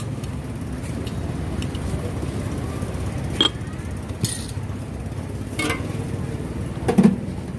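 A few scattered clinks and knocks of glasses and utensils being handled while drinks are made, over a steady low rumble of traffic. The loudest knock comes near the end.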